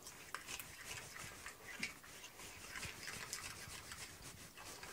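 A metal utensil stirring thick yogurt marinade in a ceramic bowl: faint, irregular scraping and clicking against the bowl.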